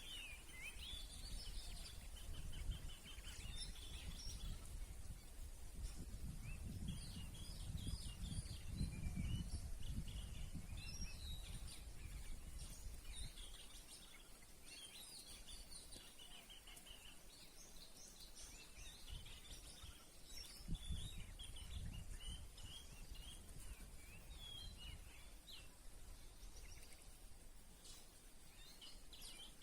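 Songbirds chirping and trilling in many short, rapid phrases, over an uneven low rumble.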